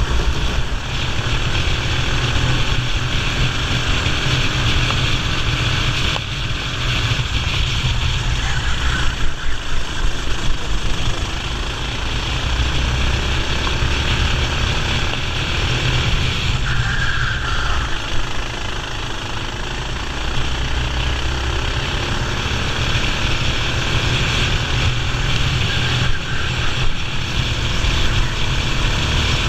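Racing kart engine running at race speed, its revs rising and falling through the corners, with heavy wind noise on the microphone.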